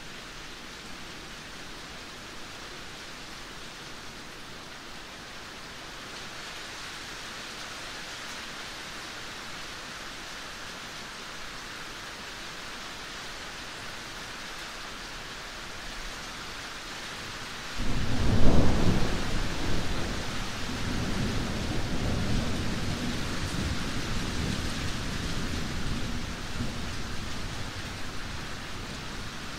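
Steady rain hissing, then about two-thirds of the way in a sudden loud clap of thunder whose low rumble dies away slowly over the following ten seconds.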